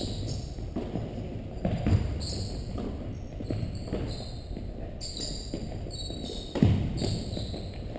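A basketball bouncing on a hardwood gym floor as players dribble, irregular thuds carrying in the large hall, with one sharper, louder knock late on.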